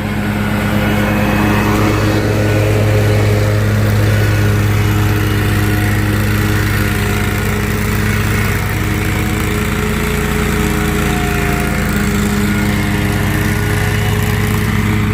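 Exmark commercial zero-turn mower running and driving, a loud steady engine drone with the hum of its wheel motors, building up over the first second and then holding. The owner takes the loud wheel-motor noise to be normal for the open-backed Exmark.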